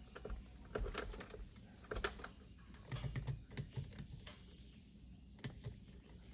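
Scattered light plastic clicks and taps as the steering wheel's horn pad is pressed, with no horn sounding because the new wheel lacks the brass contact ring.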